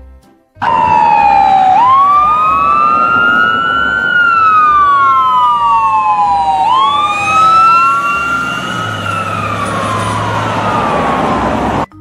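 Ambulance siren in wail mode: two siren tones slightly out of step, each sweeping up quickly and sliding slowly back down in long cycles. It starts suddenly just after the beginning and cuts off suddenly near the end.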